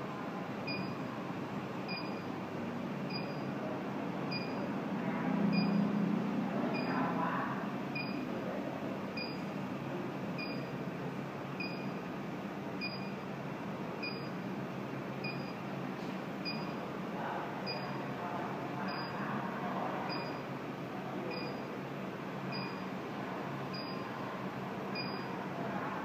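INFICON Gas-Mate combustible gas leak detector ticking, a short high beep repeating at a steady slow rate of about one every 1.2 seconds.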